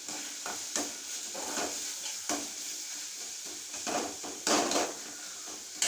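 Onion-tomato masala sizzling in oil in a pan while being stirred, a steady frying hiss broken by several irregular scrapes against the pan.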